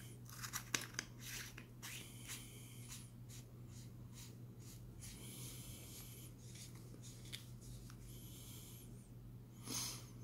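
Hands handling a flashlight: a few sharp clicks and taps about half a second to a second in, then repeated rubbing and scraping of fingers against the body every second or two, with a louder scrape near the end.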